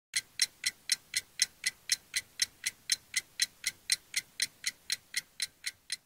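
Clock ticking steadily, about four ticks a second.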